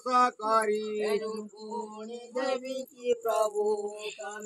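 A male voice chanting a devotional mantra in short sung phrases with brief pauses between them.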